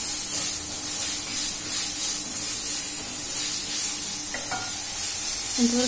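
Small boneless chicken pieces sizzling in oil in a non-stick kadai on a gas flame while being stirred with a spatula, a steady hiss as the chicken's water cooks off.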